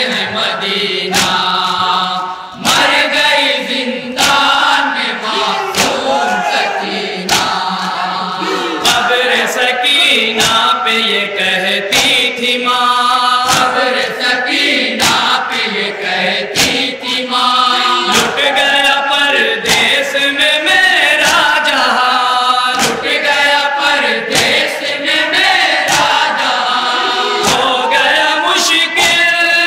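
Men chanting an Urdu noha (lament) together, with a regular beat of sharp hand strikes on bare chests (matam) keeping time, the heavier strikes about every one and a half seconds.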